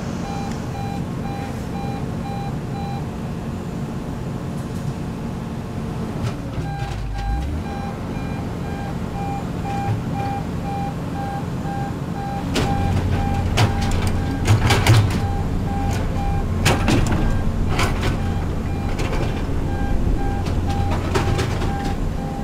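Diesel engines of a crawler drilling rig and excavator running steadily, with a rapid repeating warning beep over them. About halfway through the engine noise grows louder and metal clanks ring out several times.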